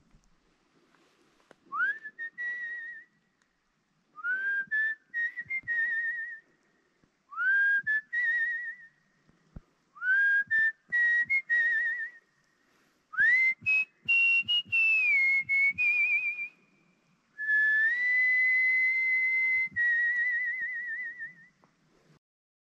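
Six loud whistled calls, each swooping up sharply and then held with a quick warble. The fifth call steps higher before dropping back, and the last is the longest, about four seconds.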